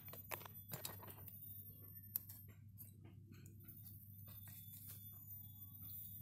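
Faint, irregular clicks and taps of a chisel working in freshly split Ficus roots, with one sharp click about two seconds in, over a steady low hum.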